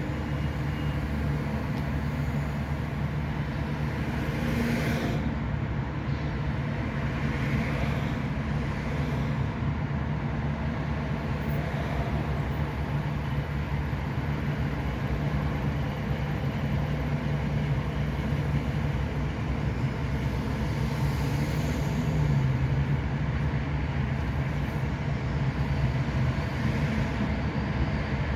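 Steady drone of road traffic: a low engine hum over tyre noise, with brief swells about five seconds in, again near eight seconds and again near twenty-two seconds.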